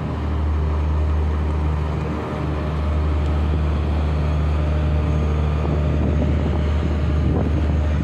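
Car ferry's engines droning steadily under way, a deep, even hum.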